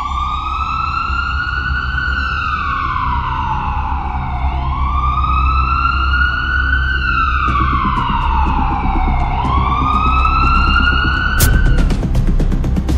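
Ambulance siren wailing, its pitch rising and falling slowly about three times over a steady low rumble, then cutting off as a run of sharp hits comes in near the end.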